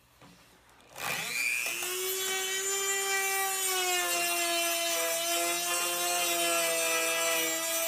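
Dremel rotary tool switched on about a second in, spinning up quickly to a steady high whine as it sands the wooden chair legs; the pitch dips slightly about four seconds in.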